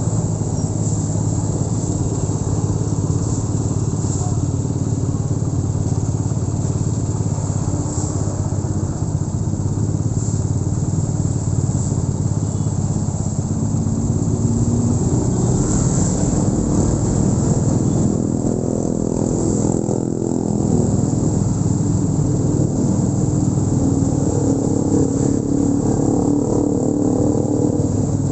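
Honda Win 100's single-cylinder four-stroke engine running under way on the road. Its note rises and falls a little past the middle and again near the end.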